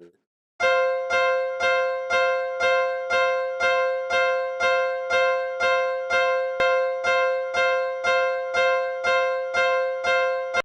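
Japanese railway level-crossing warning bell ringing its 'kan-kan' alarm: one bell-like tone struck evenly about twice a second, each strike fading before the next. It starts about half a second in.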